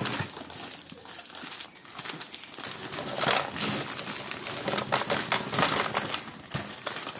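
Frozen mango chunks being poured from a plastic bag into a blender pitcher: a run of small hard clatters and knocks, with the bag crinkling.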